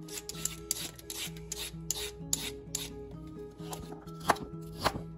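Vegetable peeler scraping down a carrot in a quick series of strokes, about three a second. Near the end, a knife chops through carrot onto a plastic cutting board in three sharp cuts. Background music with low steady notes runs underneath.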